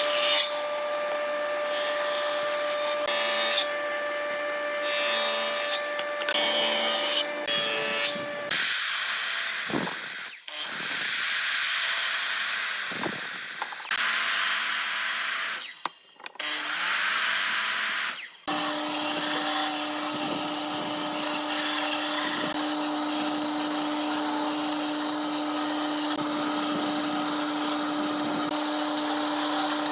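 Electric woodworking power tools running and working wood, in several short clips joined by abrupt cuts. First a steady motor whine, then louder rough cutting noise, then a lower steady motor hum for the last third.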